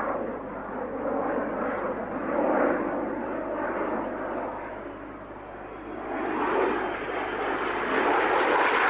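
A de Havilland Sea Vixen's twin Rolls-Royce Avon turbojets in a flying display, a steady jet roar. It eases a little in the middle, then swells and brightens as the jet closes in near the end.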